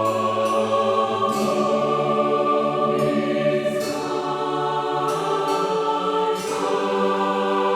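Background Christmas music: a choir singing long, held chords that change every second or two.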